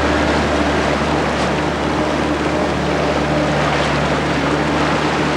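Motorboat engine running steadily under way, with rushing water and wind noise over it.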